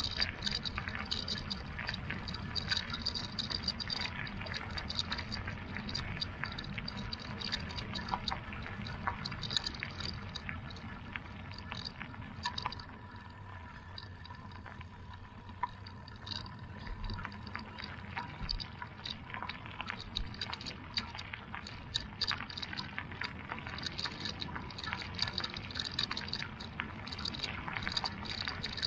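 Bicycle tyres rolling over a gravel track: a steady crackle of crunching loose stones over a low rumble, a little quieter for a few seconds around the middle.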